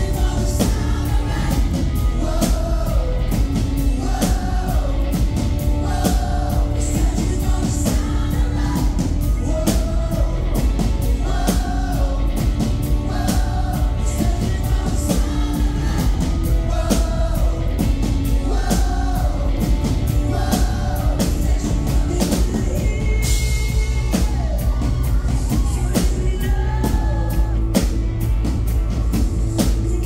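Live pop-rock band playing with sung vocals over electric guitars, keyboard and drum kit; short vocal phrases repeat about once a second over a steady drum beat.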